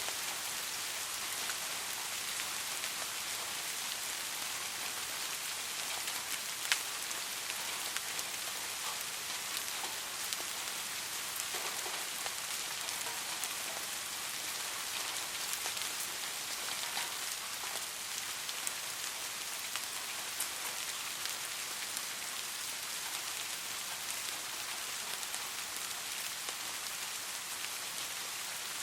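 Steady rain falling: an even hiss with scattered individual drops ticking, one sharper drop hit about a quarter of the way in.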